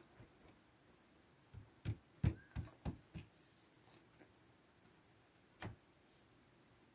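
Fiberglass targa roof panel being pressed and pushed into place on the car by hand, knocking against its seat: a quick run of about six knocks, then one more a couple of seconds later.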